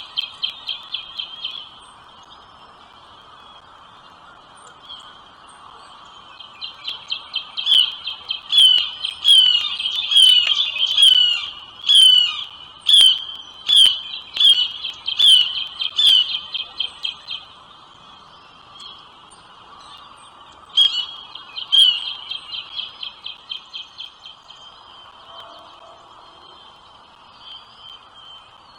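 Nestling birds chirping rapidly in bouts, typical of chicks begging for food at the nest, with louder sharp down-slurred calls about once a second through the long middle bout. A faint steady hiss of background sound runs underneath.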